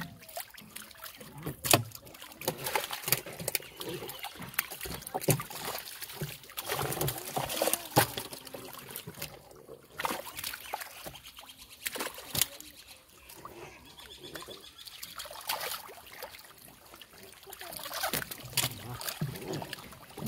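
Water splashing and trickling as a mass of live catfish thrash in a shallow netted pool while hands grab at them, with irregular sharp splashes.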